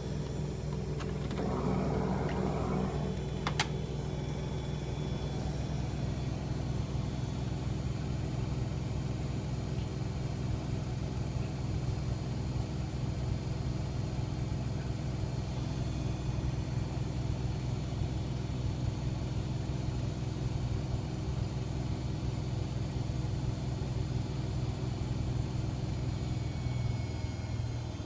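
AEG Öko-Lavamat 88840 Update washing machine running its intermediate spin: a steady motor hum and drum drone, with a single sharp click about three and a half seconds in and a slight change in the hum near the end.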